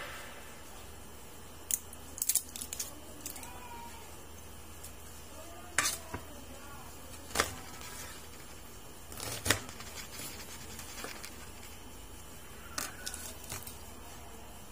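Onion being peeled and cut with a knife on a plastic cutting board: scattered sharp cuts and taps against the board, a second or more apart, with the skin being pulled off between them.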